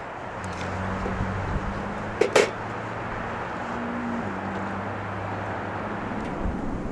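Two sharp knocks about two seconds in, a chef's knife striking a wooden cutting board while slicing a bell pepper, over a steady low motor hum and hiss.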